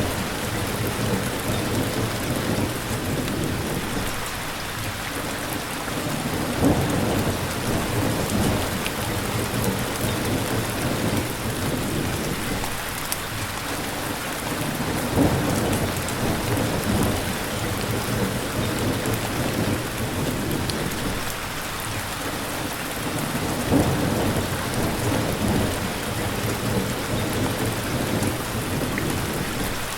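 Steady heavy rain hissing, with low rumbles of thunder swelling and fading every few seconds.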